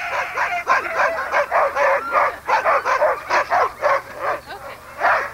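Sled dogs (huskies) barking and yipping in a rapid, continuous run of short calls, several a second.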